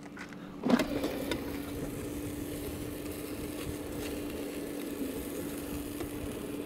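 A clunk about a second in, then an air fryer's fan starting up and running with a steady hum.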